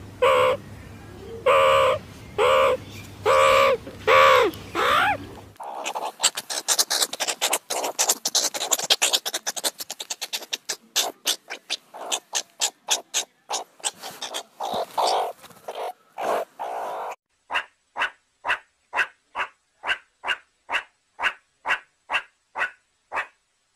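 Meerkats calling: a string of short, pitched calls that bend in pitch, then a long stretch of fast, dense clicking chatter, and near the end evenly spaced short calls, about two a second.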